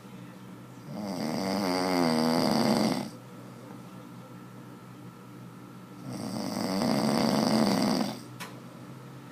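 A man snoring: two long snores about five seconds apart, each swelling over about two seconds with a rattling, wavering pitch, and quiet breaths in between.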